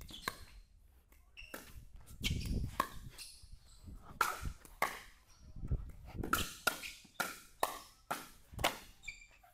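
Pickleball rally: paddles striking the hollow plastic ball and the ball bouncing on the court, a string of sharp pocks that comes about twice a second in the second half, with low thuds of footsteps.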